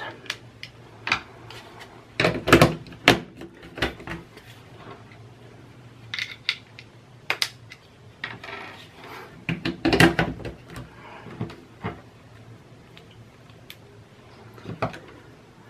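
Irregular clicks and knocks of plastic plug-pack power adapters being handled, unplugged and pushed into a power board and set to a new voltage. The loudest clusters come about two and a half seconds and ten seconds in.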